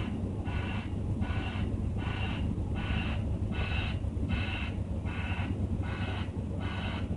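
Backup alarm on a heavy work vehicle beeping steadily, about three beeps every two seconds, over a low engine rumble.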